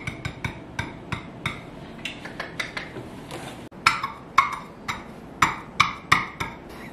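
IKEA Hönefoss hexagonal mirror tiles tapping and clicking against each other and the wall as they are pressed and fitted into place: a run of irregular sharp taps, loudest in a cluster about four to six seconds in.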